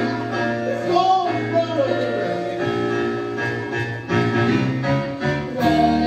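A live stage band playing a sung musical number, women's voices carrying a tune in the style of a 1960s advertising jingle.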